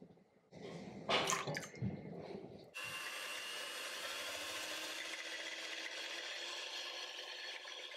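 A few brief knocks and clatters, then an electric hand mixer switches on about three seconds in and runs steadily with a constant whine. Its beaters are whisking egg yolks into milk in a glass bowl.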